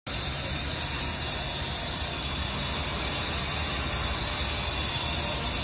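Steady hissing roar of industrial plant equipment, loud and unbroken, with a low rumble under a bright hiss.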